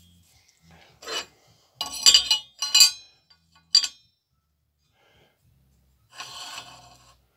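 Metal engine parts clinking as they are handled: a handful of sharp clinks in the first four seconds, then a short scraping rub near the end. The crankshaft position sensor's toothed wheel is being fitted to the rear of the crankshaft.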